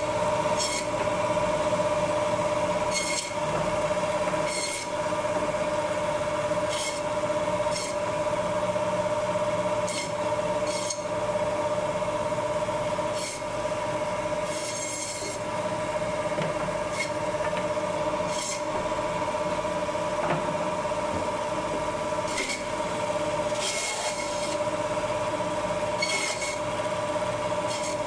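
Electric meat band saw running with a steady whine, its blade cutting through bone-in goat meat as pieces are pushed through by hand. Each cut through bone gives a brief rasping hiss, irregularly every one to three seconds.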